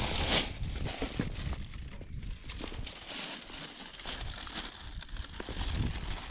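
Plastic rubbish bag rustling and crinkling in irregular short bursts as it is carried, over a low rumble of wind on the microphone.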